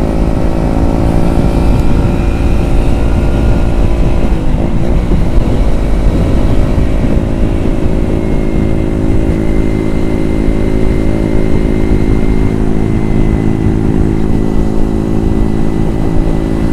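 Kawasaki Ninja 250FI's parallel-twin engine running at a steady cruise while riding, over a heavy rush of wind and road noise. The engine note wavers briefly about four seconds in, then holds steady again.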